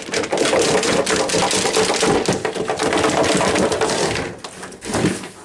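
Cardboard box and packaging scraping and rustling with many small crackles as a box fan is pulled out of its box, easing off after about four seconds with one more short rustle near the end.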